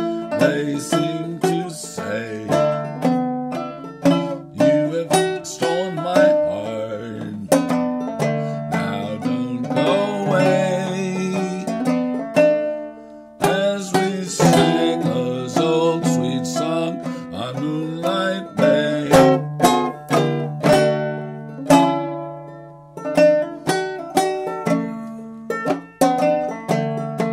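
Five-string banjo played clawhammer style: a steady run of brushed and plucked notes, each ringing and fading.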